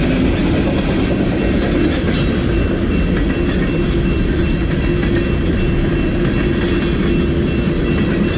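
Long freight train's cars rolling past, a steady loud rumble of wheels on rails with a few faint clicks from the wheels over the rail joints.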